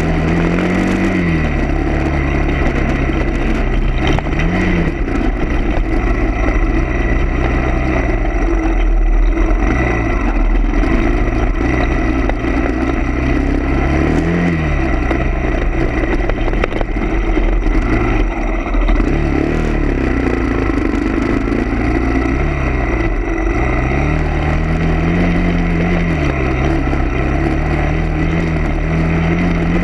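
A vehicle engine running steadily, its pitch rising and falling every few seconds as the revs change.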